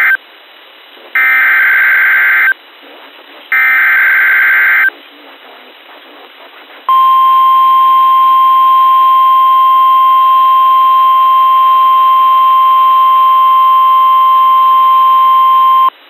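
NOAA Weather Radio SAME header: buzzy digital data bursts, one ending just as it starts and two more about a second apart. About 7 seconds in, the steady 1050 Hz warning alarm tone begins and holds for about nine seconds. Together they open a severe thunderstorm warning broadcast.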